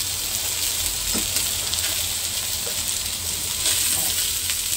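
Chicken wings sizzling steadily in a dry nonstick wok, frying in the fat that has rendered out of their own skin, with no oil added.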